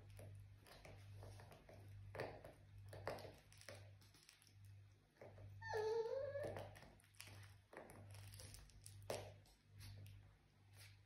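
Dachshund puppy chewing and mouthing her toys, with faint scattered chewing and snuffling noises and one short rising whine about six seconds in.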